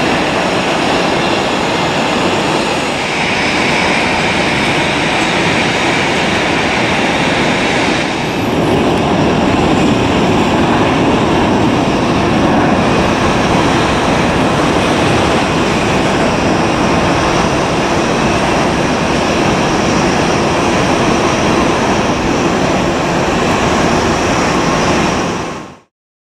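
Steady jet engine roar of airliners climbing out after takeoff: first an Airbus A330-200, then, after a short dip about eight seconds in, an Airbus A320-214 with its CFM56 turbofans. The sound cuts off suddenly near the end.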